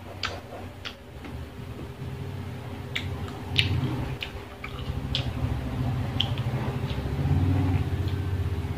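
Close-miked chewing of crisp unripe green mango: scattered sharp crunches and wet mouth clicks over a low rumble. A faint steady hum runs underneath.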